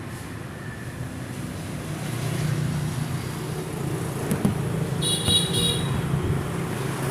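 Road traffic going by in a steady low rumble that swells from about two seconds in. A short high-pitched pulsed tone sounds about five seconds in.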